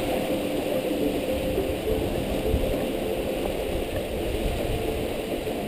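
Wind buffeting the microphone over the rush of water along the hulls of a Cat2Fold catamaran sailing fast.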